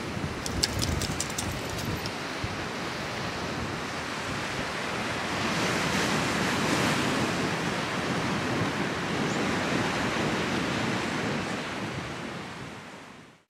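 Sea waves surging and breaking on rocky shore, with wind rushing over the microphone. The surf swells about midway and fades out near the end.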